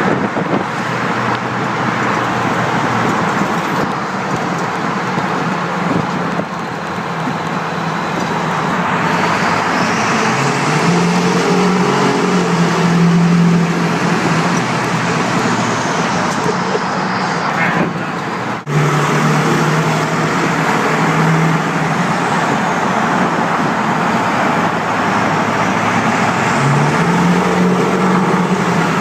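Ford 7.3 L Powerstroke turbo-diesel V8 driving through a road tunnel, loud and steady. Its engine note climbs and strengthens several times as it pulls under throttle, and a faint high turbo whistle rises and falls over it.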